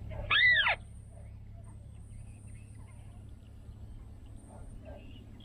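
A bird call: one loud, clear note a little under half a second long, sweeping up and then down in pitch, about half a second in.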